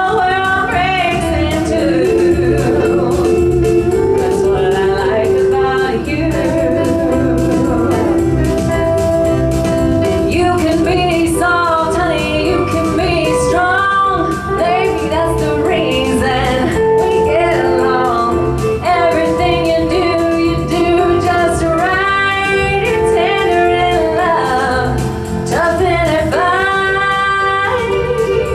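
A woman singing into a microphone with a live band accompanying her, holding long notes over a steady beat.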